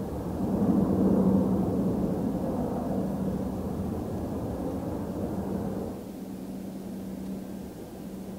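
Jet engines of a departing twin-engine airliner at climb thrust: a broad rumble, loudest about a second in, fading as the aircraft climbs away and dropping off about six seconds in, over a steady low hum.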